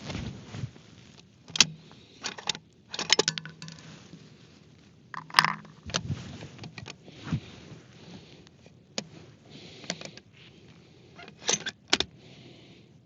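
Irregular sharp metallic clicks and clacks of handled gear, about a dozen spread out with some in quick clusters. The loudest comes about five and a half seconds in.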